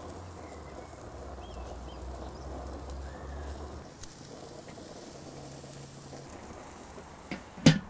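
Raw sausages and chicken sizzling softly as they are laid on the hot grate of an Outdoor Chef gas kettle grill. A couple of sharp knocks come near the end.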